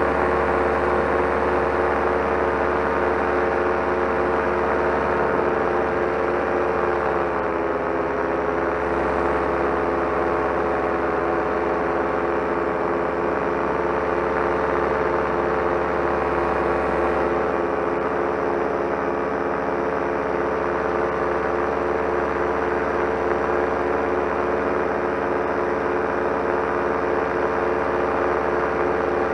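Solo 210 single-cylinder two-stroke paramotor engine running steadily in flight under load, its propeller pushing the wing along. The pitch drops slightly about seven seconds in as the throttle is eased, then holds.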